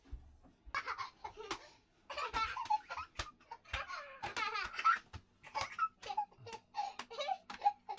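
Young children laughing and giggling in repeated short bursts, with several sharp knocks in between.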